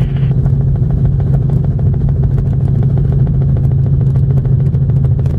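Helicopter engine and rotor noise heard inside the cabin: a steady low drone with a fast, even rotor chop.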